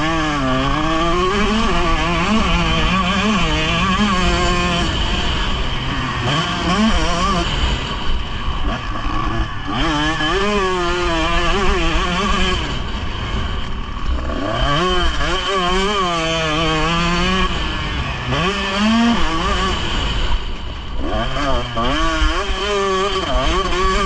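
Motocross bike engine revving hard and dropping back over and over as the rider accelerates, shifts and brakes around a dirt track, with wind rumbling on the microphone.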